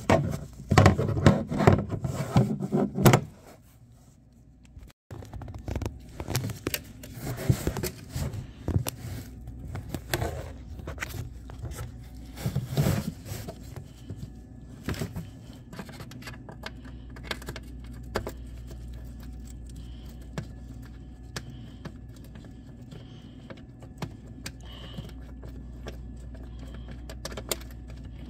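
Rattles, scrapes and sharp metallic clicks of a Torx bit and a steel oil drain plug being worked loose and handled by a gloved hand under the oil pan. About halfway through the clicks thin out over a steady low hum.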